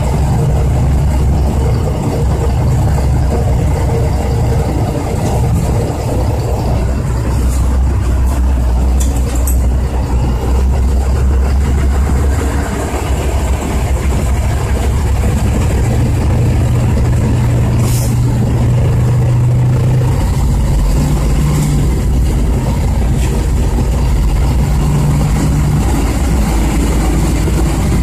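Truck engine running while driving, heard from inside the cab. It is a steady low drone whose pitch shifts about a third of the way in and again after about two thirds.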